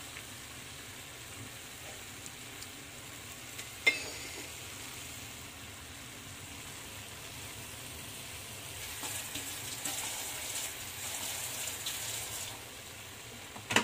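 Yardlong beans and pork belly sizzling in a frying pan, a steady frying hiss that grows louder for a few seconds near the end. A single sharp click sounds about four seconds in.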